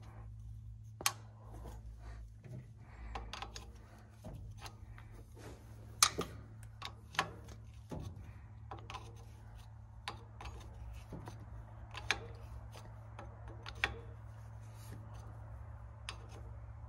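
Hand tools clinking and clicking on the injector fittings and line caps of a diesel tractor engine as they are fitted and tightened: scattered light metallic clicks, a few sharper taps among them, over a steady low hum.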